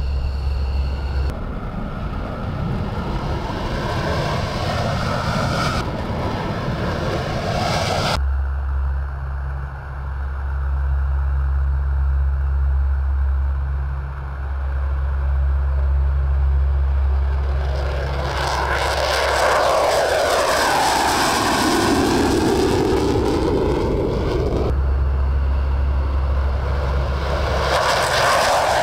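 Military aircraft taking off: loud engine noise across several cut-together shots, with a steady low rumble in some of them. About two-thirds of the way in, an aircraft passes and its engine pitch sweeps as it goes by.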